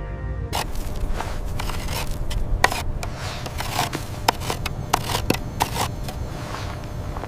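Irregular scraping and crunching: a rapid, uneven series of sharp clicks and scrapes over a steady low rumble.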